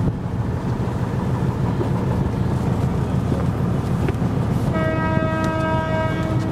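A boat's engine running with a steady low rumble, and near the end a horn sounding one steady note for about two seconds.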